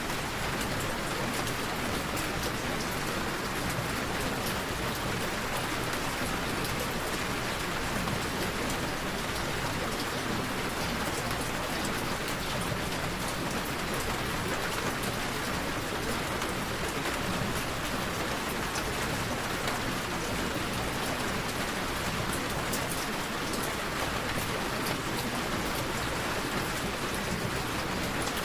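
Steady rain falling, an even hiss with scattered fine drop ticks.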